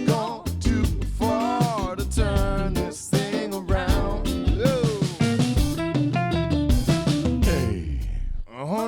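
Music: a band mix with drum kit and guitar playing. Nearly everything drops out for a moment just before the end.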